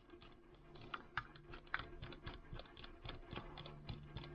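Light, irregular clicks and taps of a utility knife and its parts being handled and fitted together, over a faint steady hum.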